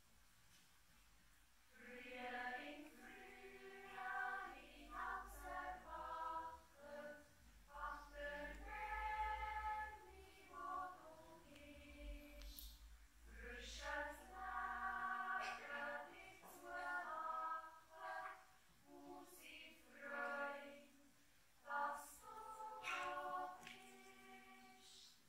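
Children's yodel choir singing a cappella in several voices, in short phrases with brief pauses between them, starting about two seconds in.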